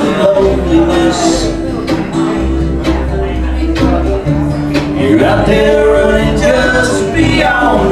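Country music: a song with guitar and a bass line playing.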